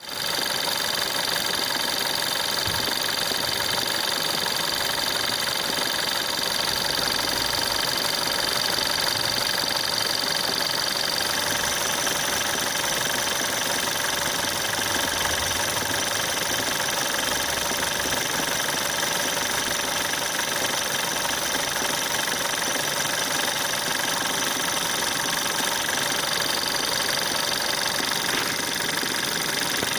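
Volkswagen-group 1.4 TSI CAXA four-cylinder turbocharged petrol engine running steadily with an extraneous drum-like knocking in the background, a noise the owner is trying to track down.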